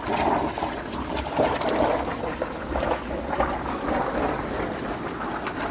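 Steady rush of rainwater pouring in through leaking seams around a pipe during a heavy downpour.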